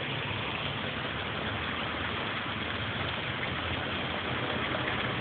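Steady rain falling, a continuous even hiss with a low rumble underneath.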